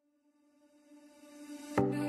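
Background music fading in: a held tone swells out of near silence, and a beat with struck notes comes in near the end.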